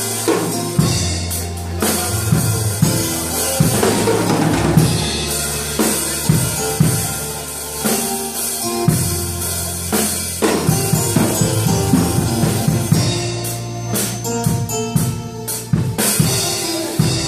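Live synthesizer keyboard and drum kit playing a worship song together: sustained keyboard chords and bass notes over steady kick and snare hits.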